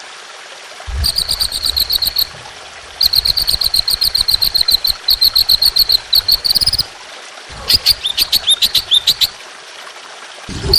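Songbird singing in three bursts of rapid-fire, evenly repeated high chip notes. The last burst breaks into short notes that slide downward. This is the fast, harsh 'tembakan' (shooting) style of song.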